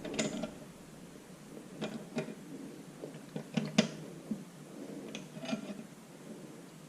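Pipe wrench working on a small 1/8-inch threaded steel oil drain pipe, snugging it into the engine block: scattered light metallic clicks and clinks, several in quick pairs, as the wrench is turned and reset.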